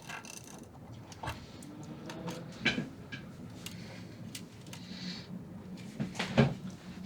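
Scattered light clicks and knocks of tools and parts handled against a metal amplifier chassis during soldering work, a few of them sharper. A faint steady hum sits underneath.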